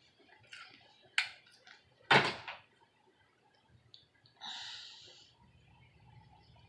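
A light click, then a louder hard clack as a flat iron is closed and set down on a hard surface. About two seconds later comes a short rustle of hands ruffling through the wig's hair.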